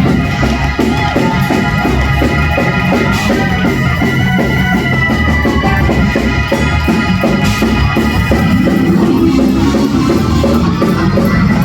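Church praise-break music: organ chords held over a fast, driving drum beat.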